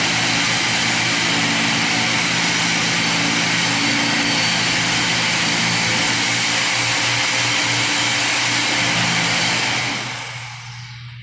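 A loud motor-driven machine running steadily, then switched off and winding down about ten seconds in.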